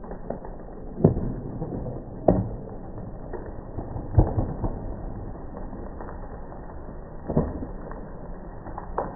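A series of five sharp knocks at irregular intervals over a steady low background, with no engine running.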